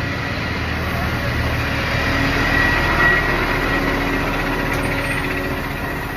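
A vehicle engine running nearby, growing a little louder about two to three seconds in and easing off toward the end.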